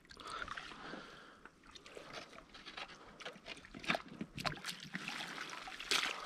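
A hand landing net being swept through shallow seawater and weed, with small irregular splashes and sloshing. A louder splash comes near the end as the net is lifted out and water streams through its mesh.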